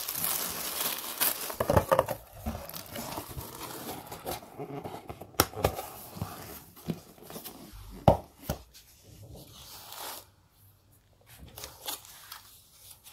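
Tissue paper rustling and crinkling as it is folded over skeins of yarn in a cardboard box, then the box being closed and handled, with a few sharp knocks of cardboard.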